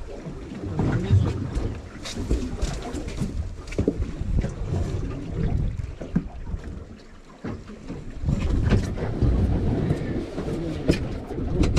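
Wind buffeting the microphone on an open boat deck at sea, swelling and easing in gusts, with water against the hull and scattered knocks and clicks of gear on deck.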